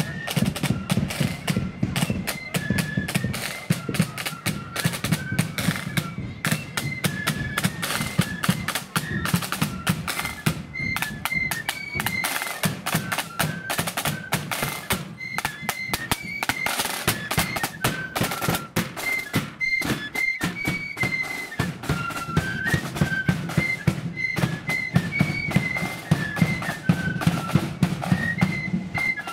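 Marching flute band playing a tune in blood-and-thunder style: flutes carry a high melody over rapid, dense side-drum strokes and a bass drum beat. The bass drum drops back for a few seconds in the middle while the side drums pass close.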